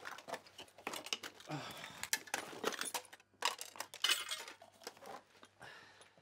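Hands rummaging through a jumble of small hard objects, which clink and rattle in irregular bursts as a search for lost keys goes on.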